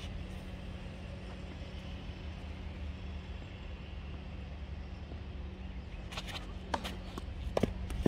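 Tennis ball on a clay court: a few sharp knocks near the end, from the ball bouncing and being struck by rackets during a rally. Under them runs a steady low background rumble.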